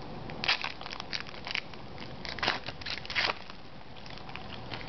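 Foil wrapper of an Upper Deck hockey card pack crinkling and crackling as it is torn and peeled open by hand, in a run of sharp, irregular crackles that die down about three and a half seconds in.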